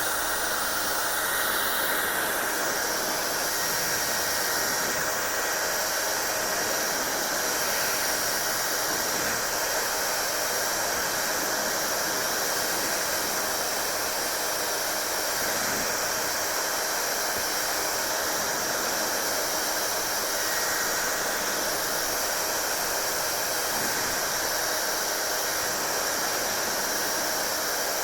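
Hair dryer running steadily: a constant rush of air with a faint steady high whine in it.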